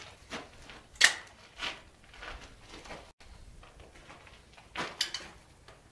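Clicks and knocks of a break-open single-shot .410 shotgun being handled and loaded, with the sharpest snap about a second in. The sounds are broken by a brief dropout a little after three seconds.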